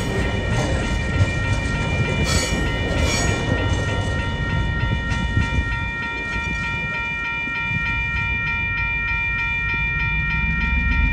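Level crossing warning bell ringing with a rapid, even chime while the last wagons of a freight train roll over the crossing, the wheels clattering over the rail joints under a low rumble. The bell cuts off near the end as the train clears the crossing.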